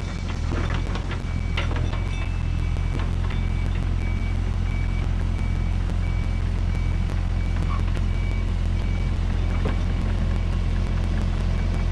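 Mini excavator's diesel engine running steadily under load as the machine tracks forward, pushing dirt with its blade, with its travel alarm beeping steadily throughout. A few scrapes and knocks of soil and stones against the blade come in the first couple of seconds.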